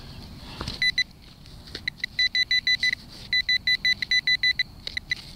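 Garrett Pro-Pointer pinpointer beeping in quick runs of short, high beeps, about eight a second, with brief pauses between runs. The beeping is its alert that the probe tip is close to metal: the target, a coin in the loose soil of the hole.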